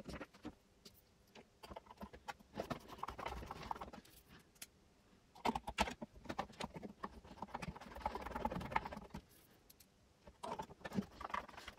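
Hand screwdriver driving small screws into a metal bracket inside the plastic housing of an electric tobacco filling machine: faint scattered clicks and scraping of metal and plastic in a few short spells.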